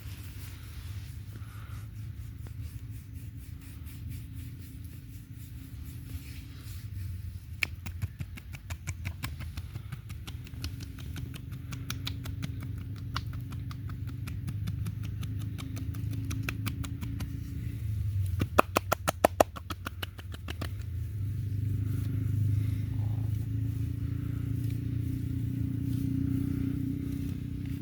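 Oil massage: hands working over oiled skin, making quick rhythmic wet clicks and slaps that come thickest and loudest a little past the middle, over a low steady hum.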